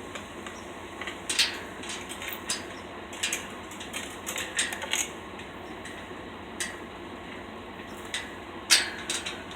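Scattered metallic clinks and knocks, about a dozen at irregular intervals, the loudest about a second and a half in and near the end, over steady background noise.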